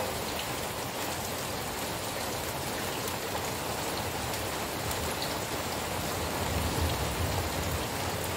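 Steady rain falling, an even hiss, with a brief low rumble swelling about six and a half seconds in.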